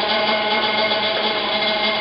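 Kent SGS-1224AHD automatic surface grinder running: a steady drone with several constant tones held throughout.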